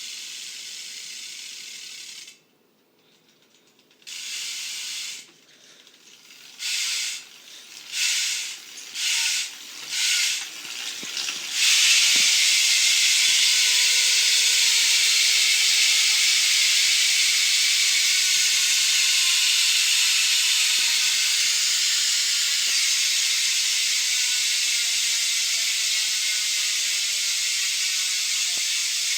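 Profile Elite cassette hub on a BMX rear wheel clicking as the wheel freewheels. First come several short, slow spins with pauses between them. About twelve seconds in it becomes a fast, loud, continuous buzz that slowly winds down in pitch as the wheel loses speed.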